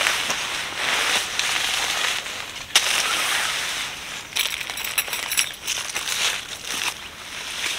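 A large camping tarp rustling and crackling as it is handled, shaken out and spread, in swelling waves with a few sharp crinkles. Footsteps crunch on dry leaf litter and stones.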